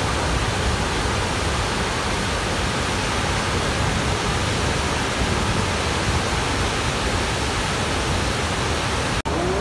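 Steady rushing of a large waterfall and rapids, water pouring over many rock ledges in an even, unbroken roar. It cuts out for an instant near the end.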